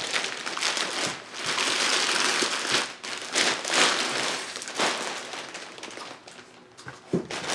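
Clear plastic bag crinkling and rustling as it is pulled off a rifle, in several surges over the first five seconds, then dying down.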